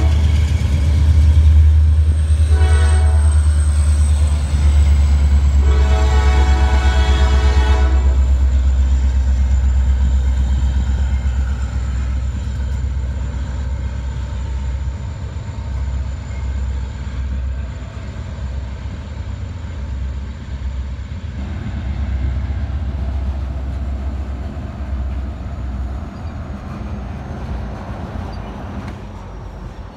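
Freight train's diesel locomotives passing close below and sounding their air horn: a blast cutting off at the start, a short toot about 3 seconds in, and a longer blast from about 6 to 8 seconds. Under it, a steady low diesel engine rumble that fades in the second half as the covered hopper cars roll by.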